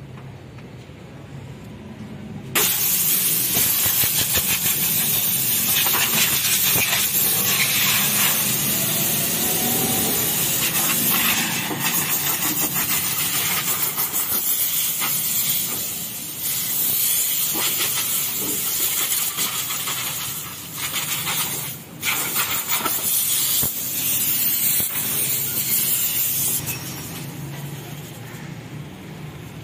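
A high-pressure nozzle hissing as a car's interior footwells are cleaned out. The jet starts abruptly a couple of seconds in, breaks off briefly a few times, and stops a few seconds before the end.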